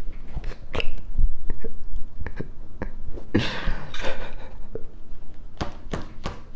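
Scattered light knocks and clicks, with a short breathy rush of noise about three and a half seconds in.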